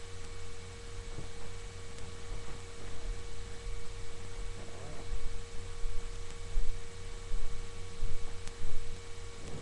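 Steady electrical hum with a constant low rumble, and a few faint soft rustles.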